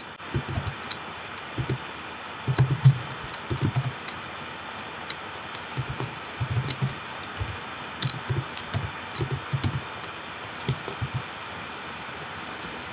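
Typing on a computer keyboard: irregular keystrokes in short clusters over a steady low hiss.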